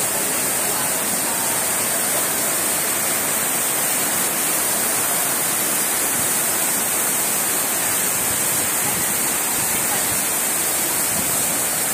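Heavy rain together with water pouring in sheets off the edge of a high concrete aqueduct trough, a steady, unbroken rush of falling water.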